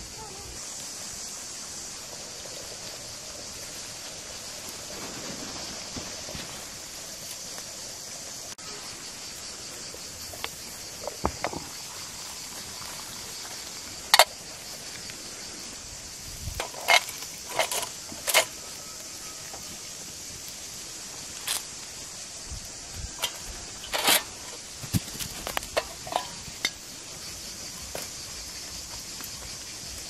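Sharp metal clinks and knocks of skewers and a kettle being handled over a wood fire, scattered at irregular intervals from about halfway through, a few with a brief ring. A steady high hiss lies underneath.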